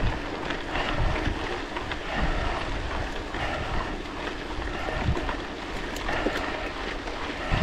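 Wind buffeting the microphone of a GoPro action camera on a moving bicycle, a steady rushing noise with gusty low rumbles, over the tyres running on a gravel forest road.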